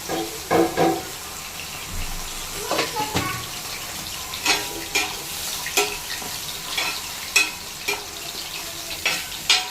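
Kitchen work: a steady hiss with sharp clinks and clatters of utensils or cookware, about ten scattered through the stretch.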